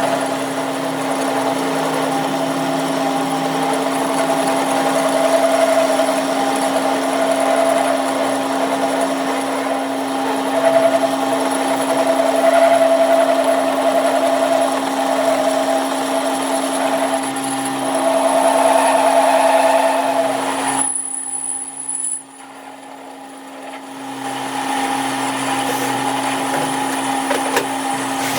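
A workshop machine or power tool runs steadily with a constant hum and a high whine. It cuts out for about two seconds roughly three-quarters of the way through, then starts again.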